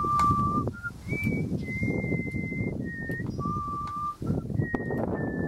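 A slow whistled tune: a string of high, pure notes, each held steady, stepping up and down one after another, over a constant low rustling noise.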